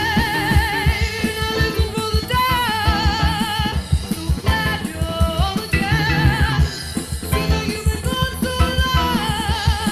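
A band playing with bass guitar, drums and keyboards, and a female vocalist singing long notes with heavy vibrato over a busy drum beat.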